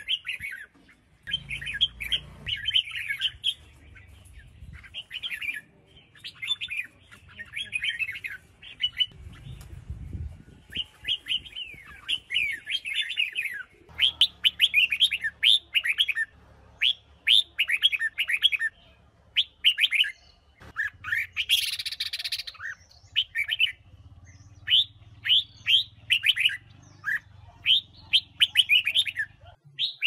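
Red-whiskered bulbul singing: short, quick whistled phrases repeated with brief pauses, with one harsher, noisier burst about two-thirds of the way through.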